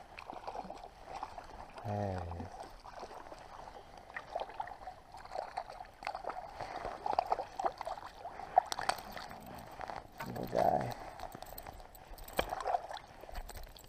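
Spinning reel being cranked to bring in a hooked brook trout, a steady winding with light ticks, while the fish splashes at the surface near the end. The angler makes two short grunts, one about two seconds in and one near the end.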